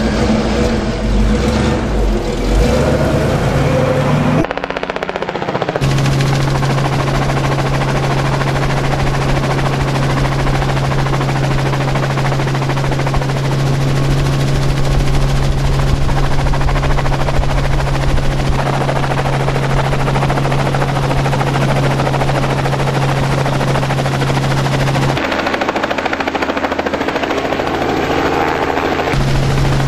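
A light helicopter's engine and rotor running steadily, the blades beating rapidly. In the first few seconds a vehicle engine runs before the helicopter takes over.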